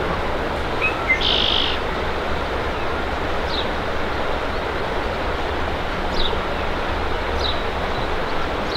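A small bird calling outdoors: short high falling chirps every second or two, plus one brief buzzy note a little after a second in, over a steady hiss of outdoor background noise.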